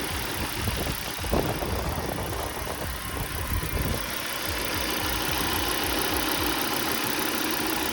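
Volvo V70 2.4 five-cylinder engine idling unevenly with a misfire. With cylinder 4's ignition coil unplugged the idle stays the same, the sign that this cylinder is already dead, through a bad coil, spark plug or injector. A brief click about a second and a half in.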